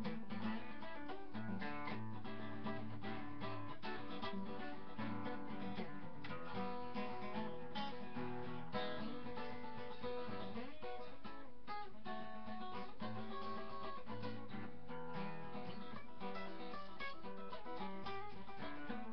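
Acoustic guitar playing a blues-rockabilly tune, strummed, holding a steady level throughout.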